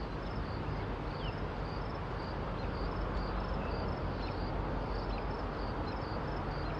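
Norfolk Southern diesel locomotive running with a steady low rumble. Insects chirp over it in an even rhythm, with a few short bird chirps.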